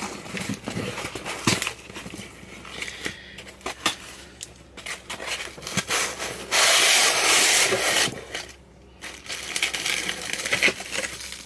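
A sellotaped package being opened by hand: packaging crinkles and rustles with many small crackles. About six and a half seconds in there is a loud, even rasp lasting about a second and a half as the sticky tape is pulled off.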